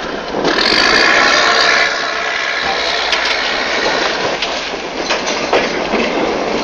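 A boat engine running steadily with a rhythmic clatter, mixed with rushing wind and water noise on the microphone. It is loudest for a stretch from about half a second to two seconds in.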